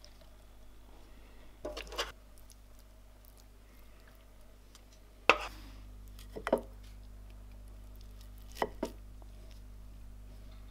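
Wooden spatula and wooden fork knocking and scraping against a clay plate and moving stir-fried broccoli and mushrooms: a handful of short clatters, the loudest about halfway through.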